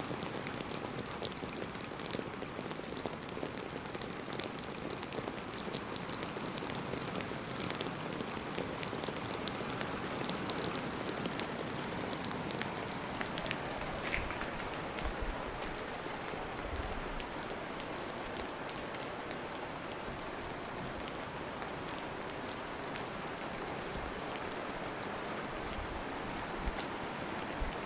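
Steady rain falling, an even hiss dotted with many sharp ticks of drops striking.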